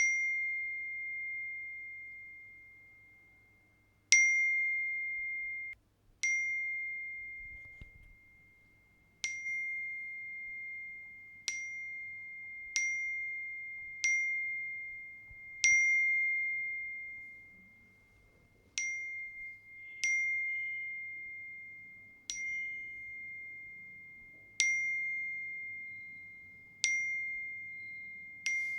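WhatsApp's default iPhone message notification tone, a short bell-like ping, repeating about fourteen times at irregular intervals of one to three seconds. Each ping starts sharply and rings out on one clear high tone.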